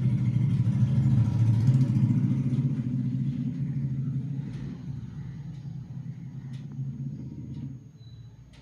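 A motor vehicle's engine rumbling steadily, then fading away and dropping off shortly before the end.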